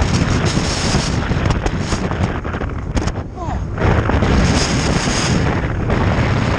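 Strong wind buffeting the microphone, loud and gusty, with a brief lull about three seconds in.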